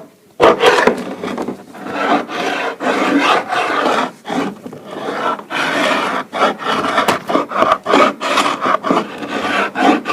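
Quick, repeated hand strokes rubbing hard against an oak floor, working old paint off the boards.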